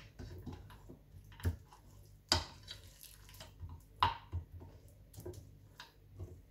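Wet, sticky squelching of hands working cooked lamb chops through thick gram-flour (besan) batter on a glass dish, with scattered small clicks and a few sharper ticks, the sharpest about two and four seconds in.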